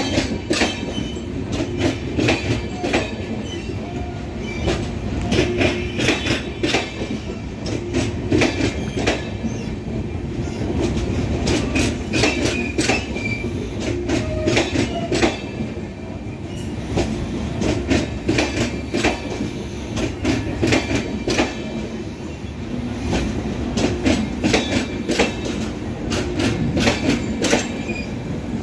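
Arriving passenger express train's coaches rolling past, wheels clattering over rail joints in a dense run of clicks, with short high wheel squeals now and then.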